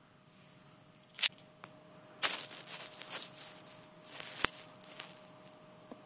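Handling noise from a phone being moved and set down: a sharp click, then a few seconds of irregular rustling and crackling with a couple of sharp knocks.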